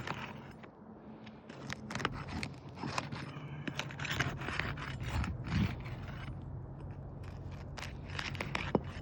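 Asphalt roof shingles stuck down by their seal strip being worked loose: irregular scraping and crackling strokes, with a sharp click near the end over a steady low hum.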